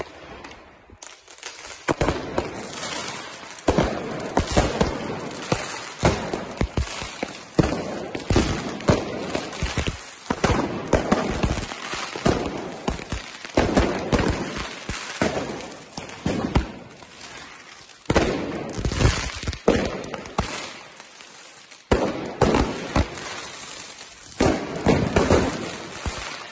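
Fireworks going off at close range: a rapid, irregular barrage of bangs and crackling that comes in waves with short lulls between them.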